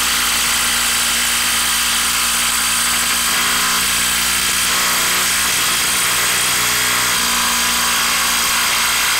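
DeWalt cordless impact wrench with a 3/8-inch anvil hammering steadily and without a break as it backs a long threaded bolt out of a wooden stump.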